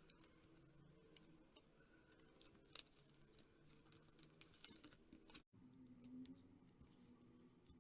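Faint clicks and light rustling of packaging and cards being handled, over a low steady hum, with one sharper click about three seconds in.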